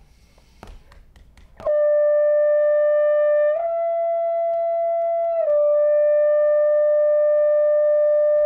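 French horn (double horn) playing a lip-slur interval exercise. A held note comes in about two seconds in, slurs up to a higher note, then back down to the first note, which is held steadily.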